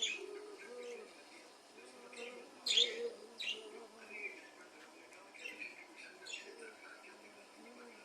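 Budgerigars chirping: a string of short, sharp high calls, loudest about three seconds in, over a lower wavering warble.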